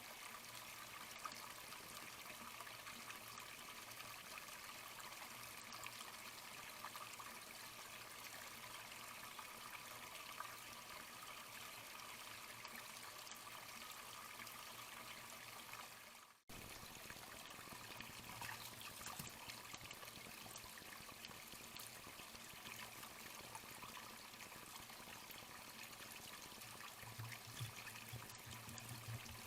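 Faint, steady trickle of running water, like a small forest stream. It fades out briefly about sixteen seconds in, then comes back abruptly.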